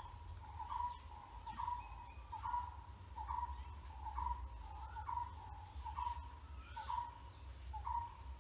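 Felt-tip marker squeaking on paper as a column of numbers is written, one short rising squeak about every second. A steady high-pitched whine runs underneath.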